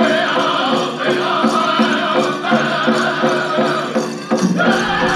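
Powwow drum group singing a chicken dance song together over a steady drumbeat. A low rumble comes in near the end.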